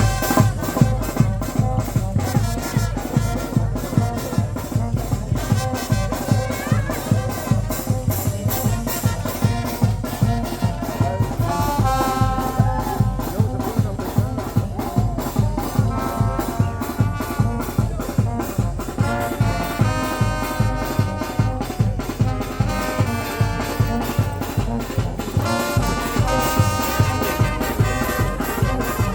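Brass and drum band playing lively carnival music, trumpets and trombones over a fast, steady drum beat, with brass phrases coming in and out.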